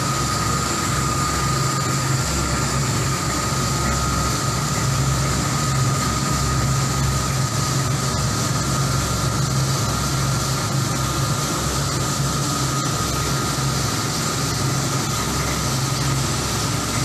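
Commercial coffee roaster running, its cooling-tray agitator arms stirring freshly roasted beans round the tray. The motors drone steadily under a constant high whine.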